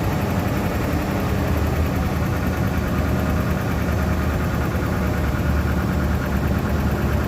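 BMW 540i (E39) 4.4-litre V8 idling steadily with a rattle.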